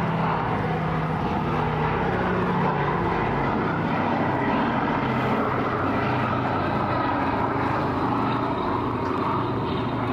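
Boeing B-17 Flying Fortress flying past low, its four Wright Cyclone radial piston engines and propellers making a steady, continuous drone.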